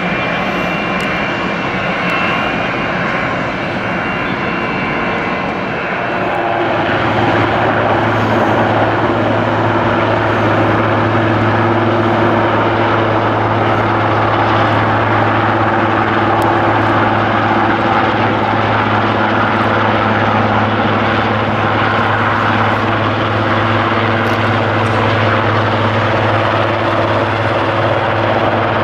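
High, thin jet-engine whine of a distant aircraft at first. From about six seconds in, a Super Puma-family military helicopter is heard hovering low, its rotor and turbines giving a steady loud noise with a deep even hum.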